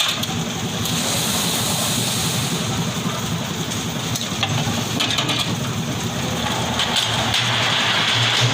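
A construction machine's engine running steadily, with a constant low hum under a hissing noise and a few faint knocks.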